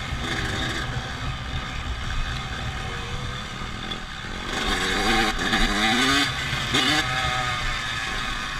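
Dirt bike engine running, its pitch rising and falling a few times about halfway through.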